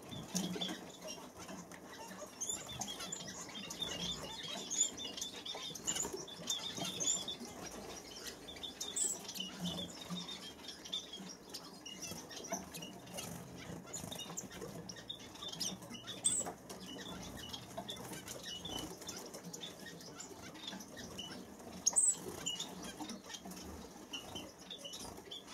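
A pair of masked finches moving about a wire cage: light fluttering, hopping and small taps and scratches on perches and bars, with short high chirps here and there.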